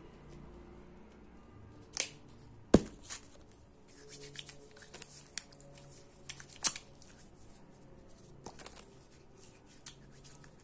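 Two sharp clicks from handling a small plastic flip-top gel bottle, then hands rubbing clear gel together, a run of small wet crackling ticks and rustles.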